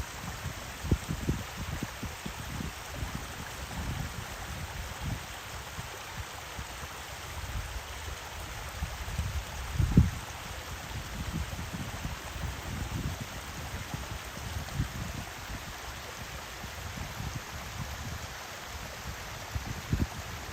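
Waterfall water flowing, a steady even hiss, with irregular low thumps, the strongest about halfway through.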